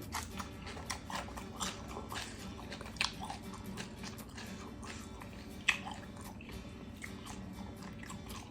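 A person chewing and biting into crunchy food, a mouthful of grilled pork salad with fresh vegetables, with short crisp crunches every second or so.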